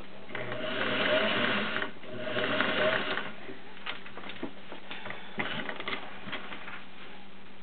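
Gear-driven Singer 403A Slant-O-Matic sewing machine running in two short bursts of stitching, each about a second and a half long, followed by a few light clicks as the machine is handled.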